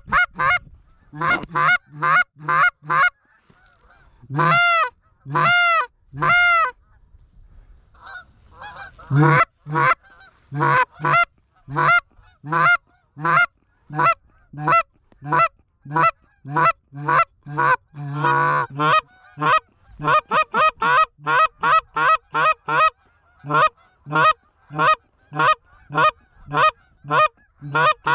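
Canada goose calls blown hard and fast: a rapid run of short, sharp honks and clucks, broken by a few longer rising-and-falling moans a few seconds in, then quickening and overlapping as more than one caller joins in. This is hunters calling to a flock of geese circling toward the decoys, trying to bring it in to land.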